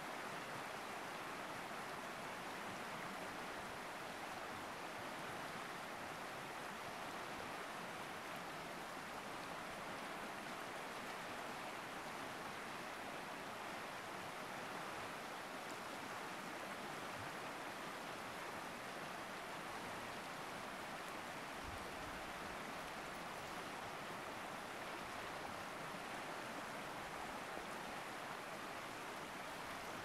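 Rapids of a wide, fast river rushing: a steady, even noise of moving water with no breaks.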